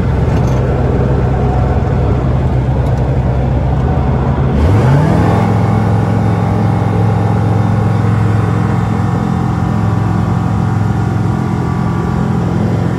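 Microlight aircraft's engine and propeller running at full takeoff power during the takeoff roll, heard from inside the cockpit as a loud, steady drone. About four and a half seconds in, the pitch sweeps briefly upward and then holds steady at its new note.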